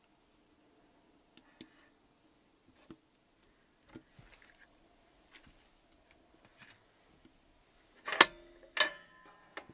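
Scattered light clicks and taps, then two sharp metallic clanks that ring briefly, a little over eight seconds in and again about half a second later.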